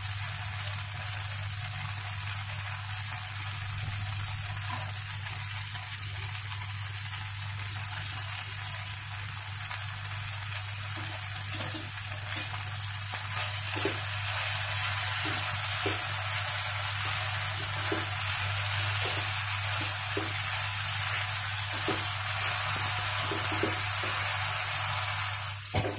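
Vermicelli frying in a hot pan with a steady sizzle, and a wooden spatula stirring and scraping through it, more often in the second half.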